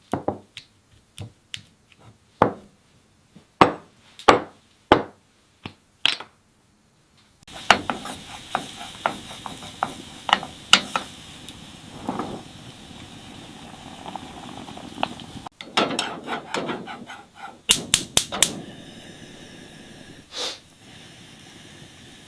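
Kitchen food-preparation sounds: single sharp taps and knocks of utensils and food on a work surface, then clatter and clicks over a steady hiss.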